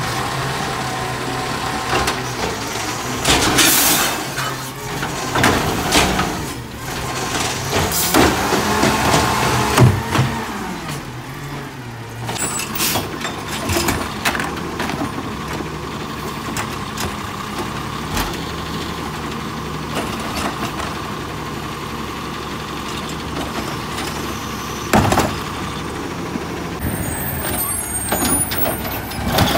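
Automated side-loader garbage trucks running their diesel engines while the hydraulic arms grab, lift and empty wheeled trash carts, with several sharp clunks and bangs of carts hitting the truck and a hiss of air brakes.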